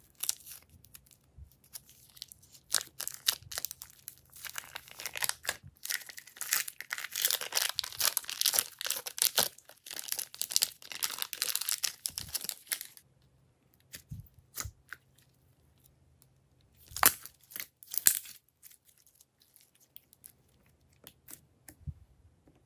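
Pink glossy slime squeezed out of a plastic piping bag and pressed into a tray of slime, making dense, sticky crackling for several seconds. It then thins to scattered clicks, with two sharp pops about a second apart later on.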